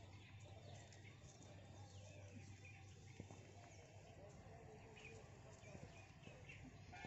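Faint small birds chirping here and there over a low steady hum.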